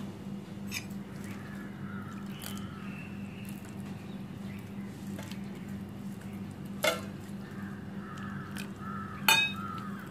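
Steel spoon stirring thick adai batter in a stainless steel bowl, with two sharp clinks of spoon against the bowl, about seven and nine seconds in, over a steady low hum.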